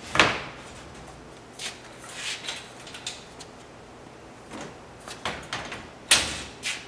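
Knocks and clanks from a metal-tube AllDolly appliance dolly as it is tipped and shifted into position against a built-in wall oven cabinet. The two loudest knocks come just after the start and about six seconds in, with lighter clacks between.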